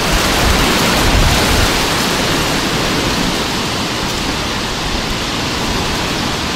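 Gusty wind blowing on an outdoor microphone: a steady rushing hiss over a low, uneven rumble that rises and falls with the gusts.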